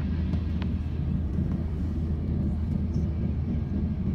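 Steady low rumble inside a jet airliner's cabin on the ground, its engines running, with a faint click about half a second in.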